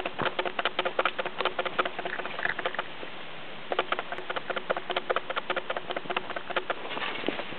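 Falling snow pattering as rapid, irregular ticks, breaking off for about a second around three seconds in.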